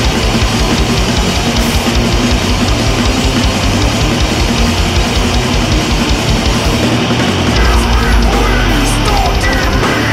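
Goregrind song: heavily distorted guitars, bass and fast drums in a dense wall of sound. About seven seconds in, the rapid low drumming gives way to a held low note, with gliding high pitches over it near the end.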